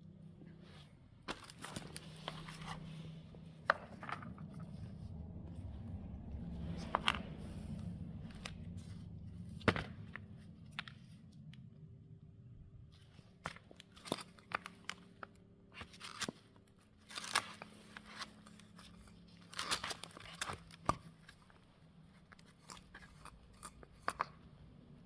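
Scattered sharp clicks, knocks and brief scrapes of hand work on the Opel F10 gearbox and its parts, over a low steady hum. The clicks bunch together around the middle and near the end.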